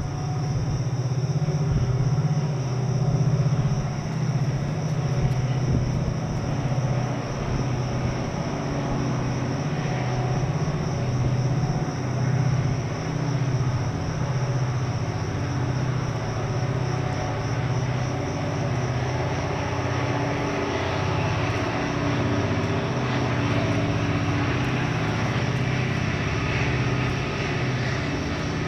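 A steady low drone from an engine running, wavering slightly in pitch with no clear rise or fall.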